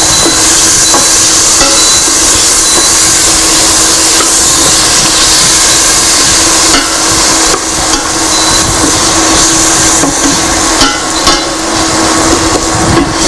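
Tomatoes, onion and spices sizzling loudly in hot oil in a steel pot as they are stirred, over a steady low hum. From about seven seconds in, the spoon knocks and scrapes against the pot several times.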